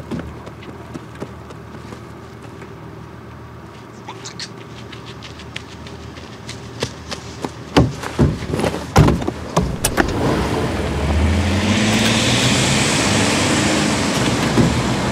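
A few heavy thuds as a man climbs back into a car and the door shuts, about eight to nine seconds in. From about ten seconds the car's engine revs up and the car pulls away hard, heard from inside the cabin. Before that there is faint outdoor background with scattered light knocks.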